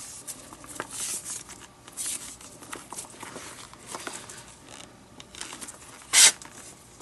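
Leather lace being pulled through the lacing holes of a leather baseball glove as its web is relaced: scattered rasping and rustling of lace on leather, with one short, louder zip of lace drawn through about six seconds in.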